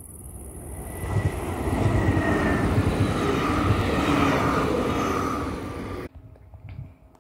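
CFL double-deck electric passenger train passing close by: a broad rushing rumble of wheels and air that swells, with a thin high whine falling slightly in pitch over the first few seconds. The sound cuts off abruptly about six seconds in.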